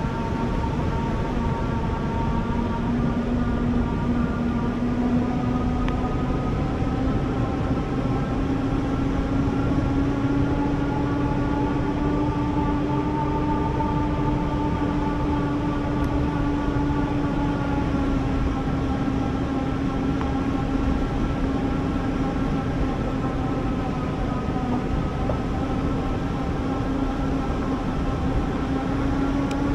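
Electric bike motor whining steadily, its pitch drifting slowly up and down, over a continuous low rumble.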